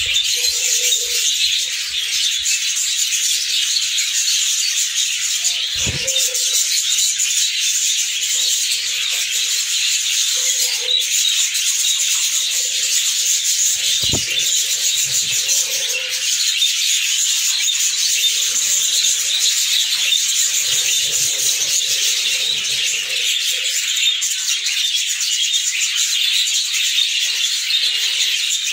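Budgerigars chattering steadily as a flock, a dense, unbroken high twittering. Two sharp knocks about six and fourteen seconds in come from the clay nest pots being handled.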